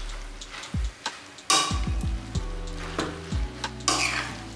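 A metal spoon stirring Malabar spinach leaves in a hot kadai: scraping swishes against the pan, loudest about a second and a half in and near the end, with small clicks and the sizzle of the frying greens. Background music with low bass notes runs underneath.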